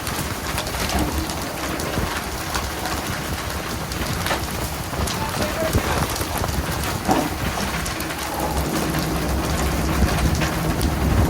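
Dense, steady patter of falling water hitting a surface, like heavy rain, with scattered sharp splashes and knocks over a low rumble that grows stronger near the end.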